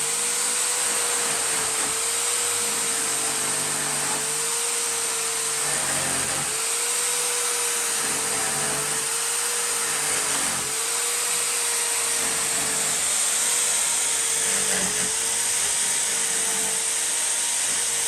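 Corded electric drill running a cutter in a Souber mortice jig, cutting a lock mortice into the edge of a wooden door. The motor runs steadily, its pitch sagging briefly every couple of seconds, with two short pauses around a third and just over halfway through.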